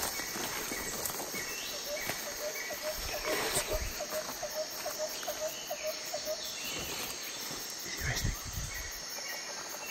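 Forest ambience: a steady high drone of insects with scattered bird calls, and a run of short, evenly repeated calls through the middle.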